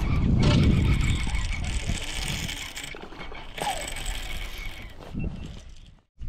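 Baitcasting reel worked by hand close to the microphone, its handle and drag giving a fast, even run of small mechanical clicks for about three seconds. A low rumble comes at the start, and the sound drops out just before the end.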